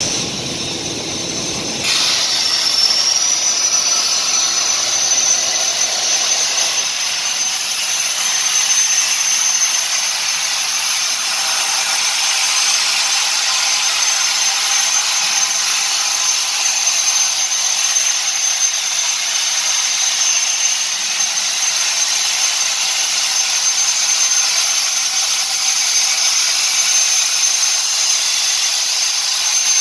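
400 amp high-definition CNC plasma cutting torch: after a quieter hiss, the arc strikes about two seconds in and then runs as a loud, steady hiss with a thin high whistle while it pierces and cuts 50 mm thick wear steel.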